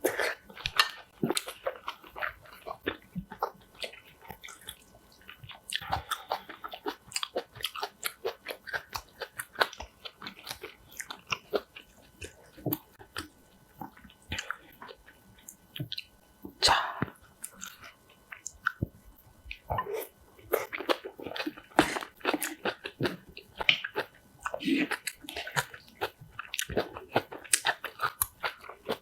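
Close-miked chewing with many crisp crunches in irregular succession: a mouth biting and chewing crunchy kimchi.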